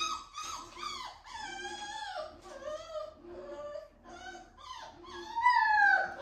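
Six-week-old American Bully puppy whining and whimpering, a string of high calls that mostly slide down in pitch, the loudest and longest near the end.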